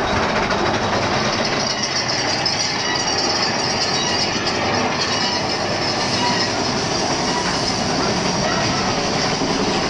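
Mine-train roller coaster cars of Big Thunder Mountain Railroad running along the track: a steady, loud rattle and rumble of wheels on rails.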